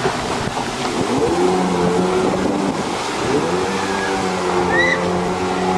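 Jet ski engine running at speed with a steady drone, its pitch rising twice as it revs up.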